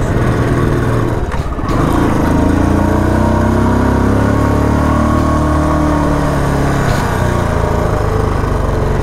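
Motorcycle engine running under way. It eases off briefly about a second and a half in, then revs up again, its pitch rising and falling back over the next few seconds before settling to a steady run.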